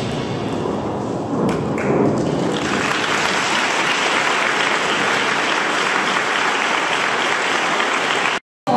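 Audience applauding, a dense steady clapping that swells in about two and a half seconds in and cuts off abruptly near the end.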